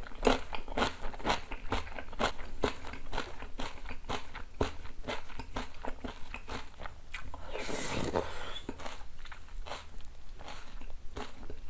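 Close-miked ASMR eating sounds: a person chewing, with quick wet smacking clicks two or three times a second. About eight seconds in there is one longer noisy slurp.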